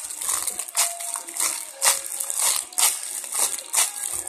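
Clear plastic bag crinkling in short rustles, about two a second, as a squishy toy sealed inside it is squeezed and turned in the hands.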